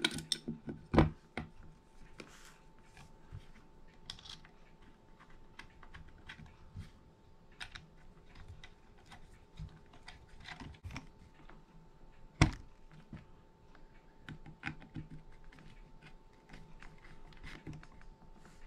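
Metal trigger guard being pressed and worked into its inletting in a Springfield trapdoor rifle's wooden stock: scattered light clicks and taps of metal on wood, with a sharper knock about a second in and another about two-thirds of the way through.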